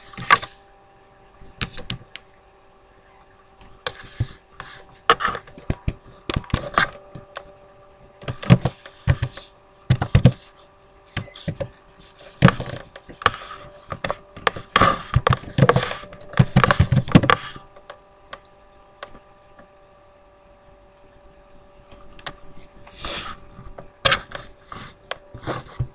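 Computer keyboard and mouse clicking in irregular bursts of sharp clicks and knocks, with quiet pauses between them. A faint steady hum of several tones sits underneath.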